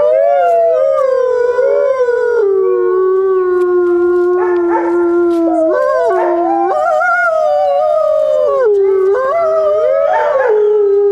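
A pack of wolves howling together: several long, overlapping howls sliding up and down in pitch, one voice holding a low, level note while the others rise and fall above it.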